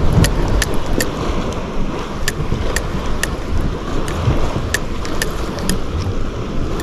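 Steady wind noise on the microphone over the sound of the sea washing against rocks, with a dozen or so sharp clicks at irregular spacing.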